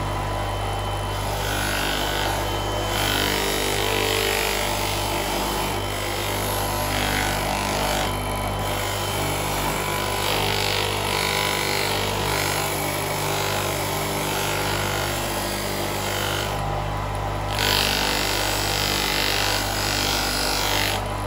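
Electric motor running with a steady hum while an aluminium Honda CBR650 rear footrest is pressed against the buffing wheel on its shaft, giving a rough hissing scrape. The scrape drops out briefly a few times as the part is lifted off the wheel, most clearly about three quarters of the way through.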